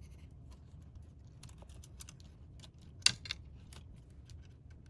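Light, scattered clicks and taps of small parts being handled while cables are reconnected inside an opened MacBook Pro, with one sharper click about three seconds in.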